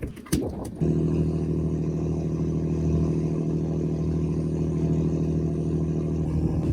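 An engine starting up about a second in and then running at a steady speed, after a couple of clicks at the start.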